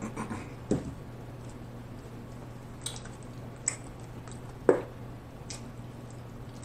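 Condiment bottles being handled over a food tray: a few short knocks and squishy clicks from a hot sauce bottle and a squeeze bottle of honey, the loudest about four and a half seconds in, over a steady low hum.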